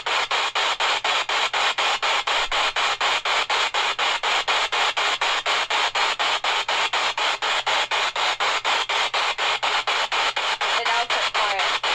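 Spirit box sweeping radio stations: a steady hiss of static chopped about four times a second, with a brief snatch of a voice near the end.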